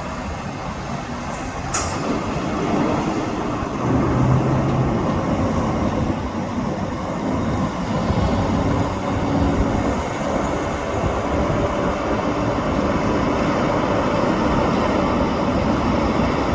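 Heavy construction machinery running on a building site, a loud, steady mechanical noise with low engine tones that come and go. A short sharp clank about two seconds in.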